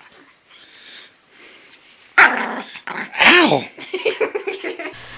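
Pomeranian barking and growling protectively at a hand reaching for a pregnant woman's belly. Little sound for about two seconds, then a sharp bark, a longer bark that rises and falls in pitch, and a run of quick growling snaps.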